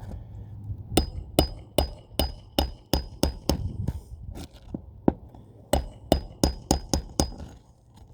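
A tool striking metal again and again, each blow short and sharp with a brief ring. The blows come in two quick runs of about two to three a second, with a few scattered hits in between.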